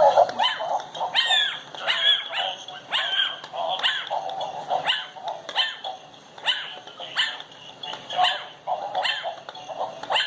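Ten-week-old Chihuahua puppy barking: a long run of short, high-pitched yapping barks, about two a second.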